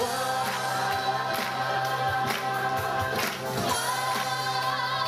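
Mixed youth glee choir singing held chords in harmony over a steady low bass note.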